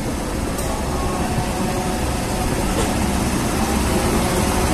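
WAP-7 three-phase electric locomotive passing close by at low speed: a steady rumble of wheels and running gear with the hum of its motors and blowers, growing slowly louder, with a couple of faint clicks from the rails.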